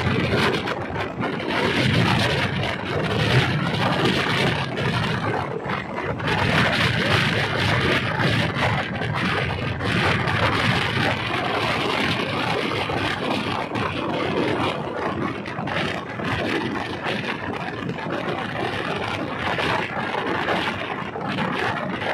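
Diesel multiple-unit passenger train running, heard on board: a steady rush and rumble of wheels on rails with frequent rattles and clicks.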